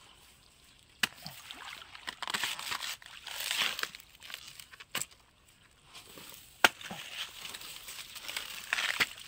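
A long-handled hooked blade hacking and dragging through dry grass and reeds: rustling and crackling broken by four sharp chops, about a second in, at five seconds, at six and a half seconds (the loudest), and near nine seconds.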